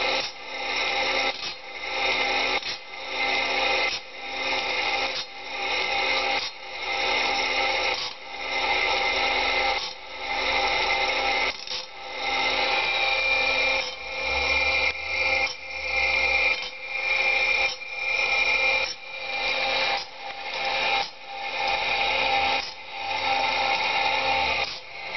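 Band saw blade sharpening machine grinding, with a grinding-wheel whine that swells and dips in an even cycle about once every one and a half seconds as it works tooth after tooth.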